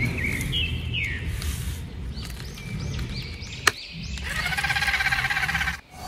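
A steady low rumble with short bird chirps over it, a sharp click about two-thirds of the way in, then a quavering pitched animal-like call lasting over a second near the end.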